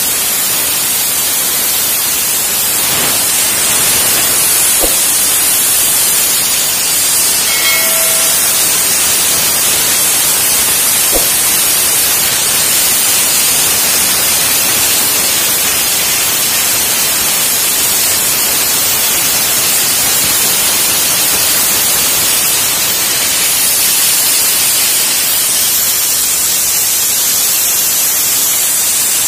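Compressed air hissing steadily out of a full air-compressor receiver tank through an opened valve at its base, bleeding the tank pressure down.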